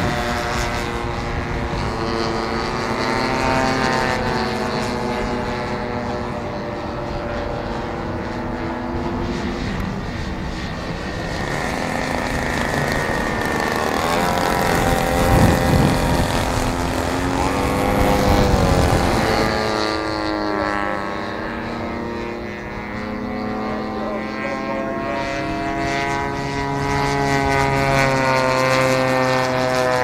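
Radio-control model Stampe biplane's engine and propeller running in flight. The pitch rises and falls as it passes and turns, and it is loudest in a close pass about halfway through.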